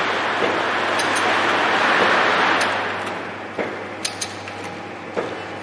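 ATM-320L automatic liquid sachet packing machine running, with a steady low hum. A rushing noise swells over the first two seconds or so and fades, then short light mechanical clicks come a few at a time.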